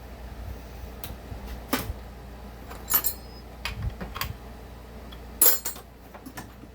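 Small metal parts and hand tools clinking and knocking on a workbench, a scattering of separate sharp clicks with the loudest knock about five and a half seconds in.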